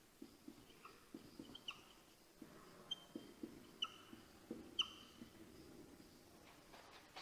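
Faint writing on a board: a run of light taps with a few short, high squeaks from the writing tip, most of them between about one and five seconds in.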